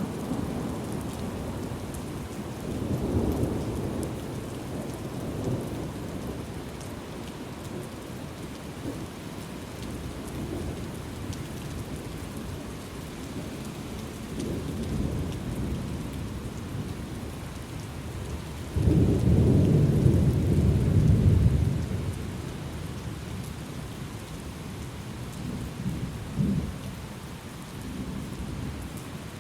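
Thunderstorm: steady rain falling, with rolls of thunder rumbling low several times. The loudest is a sharp, heavy rumble lasting about three seconds a little past the middle.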